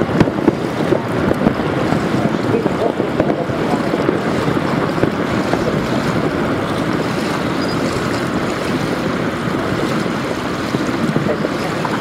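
Rockfall down a cliff across a lake: a steady rumbling rush of tumbling rock and debris with many small crackles, mixed with wind buffeting the microphone.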